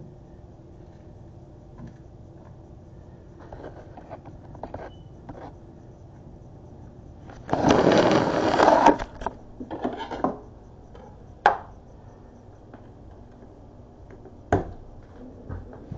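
Camera being handled and repositioned on a kitchen counter. It makes a rubbing, scraping noise about a second and a half long around the middle, with a few light knocks and clicks before and after.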